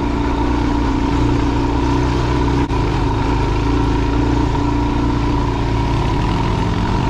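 Suzuki DR-Z dual-sport motorcycle's single-cylinder engine running steadily at low revs, lugged under load on a trail climb, with a momentary dip about two and a half seconds in.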